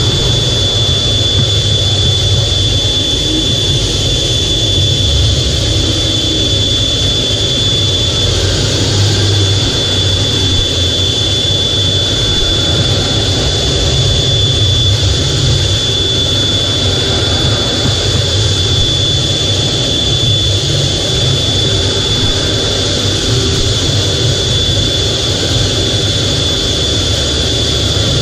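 F/A-18 Hornet's twin jet engines running steadily while the jet taxis, heard from inside the cockpit: a constant high whine over a low rumble.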